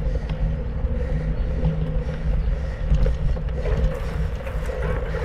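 Mountain bike ridden over a dirt trail: a steady low rumble, with scattered clicks and rattles from the bike.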